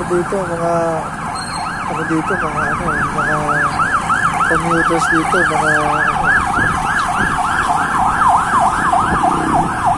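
Ambulance siren in a fast rising-and-falling yelp, about three sweeps a second, loud and continuous. Over it in the first several seconds come a few short, lower, steady blares like vehicle horns honking in traffic.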